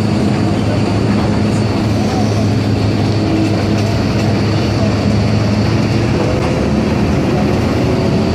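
Steady engine and road noise heard from inside a moving vehicle in traffic, with a constant low hum and a faint, steady high whine.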